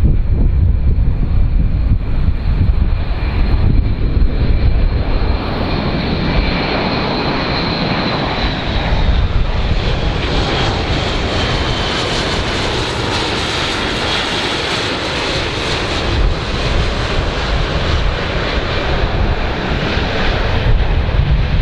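Airbus A400M's four TP400 turboprop engines and eight-bladed propellers droning and whining as the aircraft flies past low, with the whine dropping in pitch partway through as it passes.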